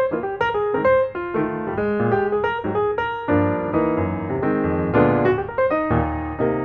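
Background piano music: a stream of single notes over lower chords, several notes a second.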